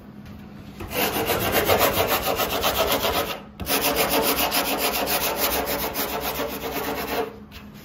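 A hand sanding block rubbed back and forth over a cured fiberglass-and-epoxy patch on the nose of a windsurf board, sanding the patch down. The scratching starts about a second in, stops briefly after about three and a half seconds, then resumes and stops just before the end.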